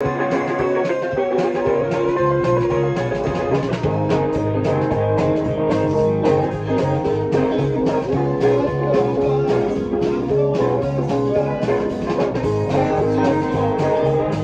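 A band playing a rock song live in rehearsal: an electric bass plucked with the fingers, a moving bass line under guitar, with a steady beat of drum and cymbal hits.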